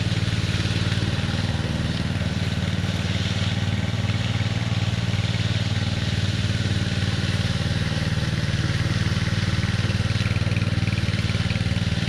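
Walk-behind concrete power trowel fitted with a float pan, its small engine running steadily as it floats a freshly poured slab on the first pass.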